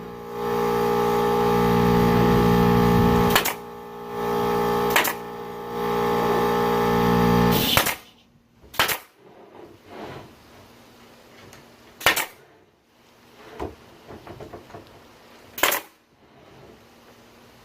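Air compressor motor running loudly and steadily, cutting off suddenly about eight seconds in as it reaches pressure. Sharp cracks every two or three seconds come from a pneumatic denailer driving ring shank nails out of wooden fence pickets.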